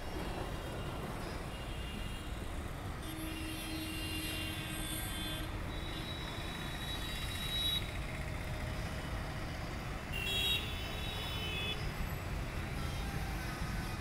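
Steady low rumble of outdoor town background noise, with high, thin tones coming and going over it for a few seconds near the middle and again briefly about ten seconds in.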